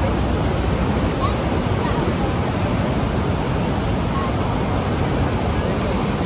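Niagara Falls' water falling, a loud, steady, unbroken rush of noise.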